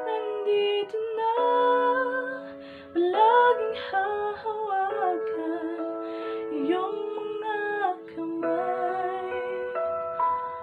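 A woman singing a slow love-song melody in held, wavering notes, with musical accompaniment underneath; the words are not clear.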